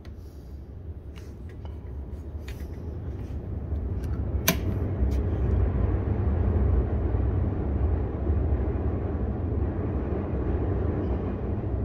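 Steady low rumble that grows louder over the first few seconds and then holds, with a few faint clicks and one sharp click about four and a half seconds in.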